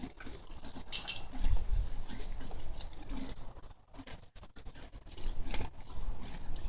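A horse chewing its feed, irregular crunching with low thumps.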